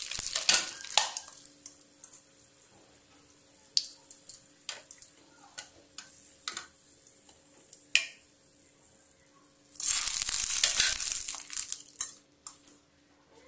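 Vadas deep-frying in hot oil in an aluminium kadai: the oil sizzles and splashes as a steel slotted spoon stirs and lifts them out, with scattered clicks of the spoon against the pan and a louder hiss of about two seconds near the end.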